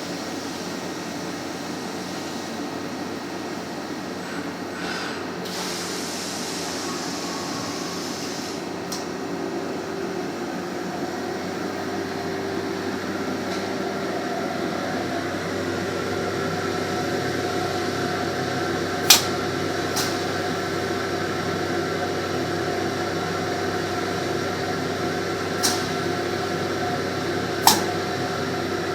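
Steady machine hum of a CNC machining cell at work, with steady tones coming in about halfway through and a few sharp clicks in the second half.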